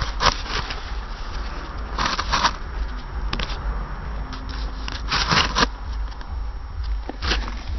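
Handling noise from a camera being set in place on a shelf: clusters of knocks, clicks and scrapes every couple of seconds over a low rumble.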